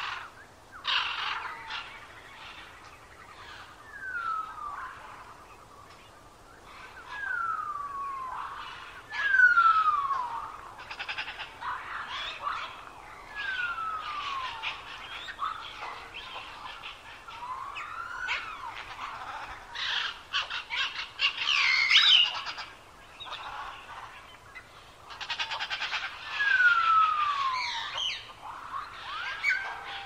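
Several birds singing together: busy chirps and trills, with a clear whistle that slides down in pitch every few seconds.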